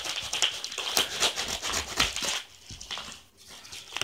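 Paper mailer envelope crinkling and rustling as it is cut open with scissors and handled, with many small crackles and snips; it goes quieter for about a second before the crinkling picks up again at the end.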